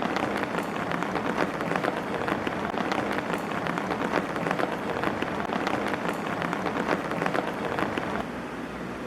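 Steady rain falling on a hard surface, a dense irregular patter of drops over a hiss, easing slightly near the end.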